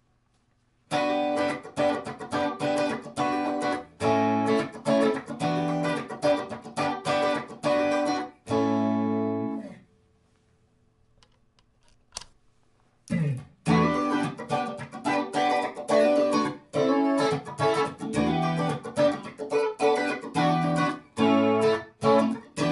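Electric guitar, a Strat-style S-Type, played through a Strymon Deco tape-saturation and doubletracker pedal set for tape flanging, into a Tone King Imperial valve amp. It plays short rhythmic chord stabs and sustained chords, stops for about three seconds near the middle, then resumes.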